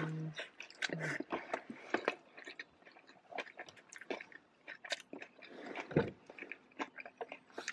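A person chewing and biting food close to the microphone: an irregular run of short, wet mouth clicks and smacks.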